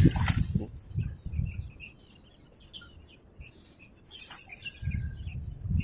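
Insects trilling steadily in a high, finely pulsed note, with scattered short bird chirps. Low rumbling noise comes in the first second or so and again near the end.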